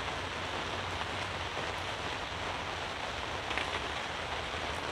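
Steady rain falling on a pop-up canopy tent overhead, with a low hum underneath. A brief small sound about three and a half seconds in.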